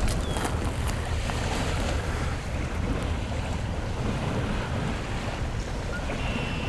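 Steady, deep rushing ambience with a few faint, short, high chirps scattered through it.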